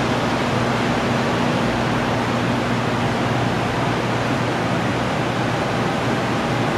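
Steady rush of air from a cleanroom's positive-pressure ventilation blowing through HEPA filters, with a low hum underneath.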